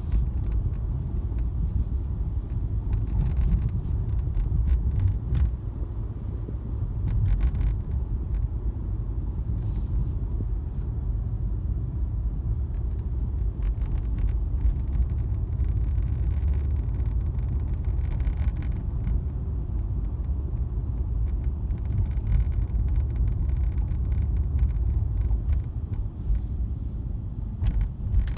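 Mercedes-AMG C63 S (W205) dashboard and infotainment screen rattling while the car is driven: irregular light clicks and rattles over the steady low rumble of road and engine noise in the cabin.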